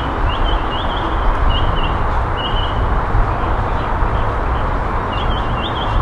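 A bird calling in short, repeated rising chirps, about two a second, over a steady rumble of distant traffic; the chirps pause in the middle and start again near the end.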